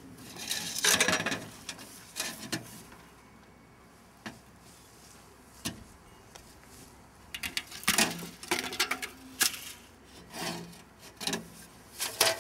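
Flexible aluminium foil ducting crinkling and rustling as it is handled and stretched, in irregular short bursts with a couple of sharp clicks in between.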